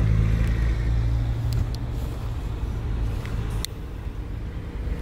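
A car running, heard from inside the cabin: a steady low engine and road hum that eases off a little near the end, with a few faint clicks.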